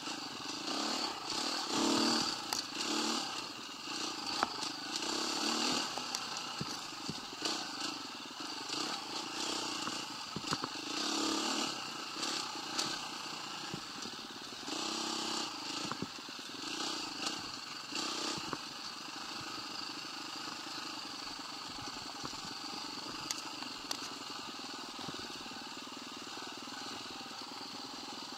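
125cc motorcycle running as it is ridden, its sound swelling and dropping through the first half and steadier later, with scattered short knocks and clatters.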